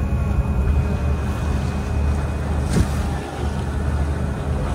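Passenger ferry running underway: a steady low engine drone with the rush of water and wind over it, and one short knock just under three seconds in.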